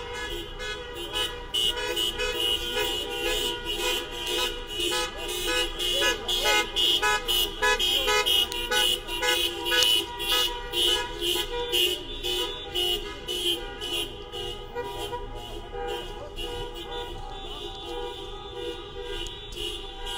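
Many car horns sounding together in a protest honk-in as a line of cars drives past: several horns held steady, overlapped by rapid short repeated toots that thin out over the last few seconds.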